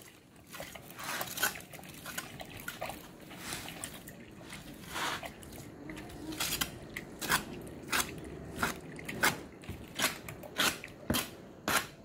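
A mason's trowel scraping and smoothing wet clay plaster, a run of short strokes that come about twice a second in the second half.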